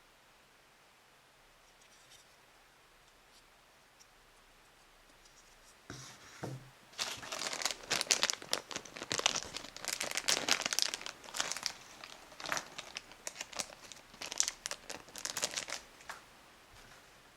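Toy packaging wrapper being crinkled and torn open by hand, in a dense run of sharp, irregular crackles that starts about six seconds in and dies away near the end.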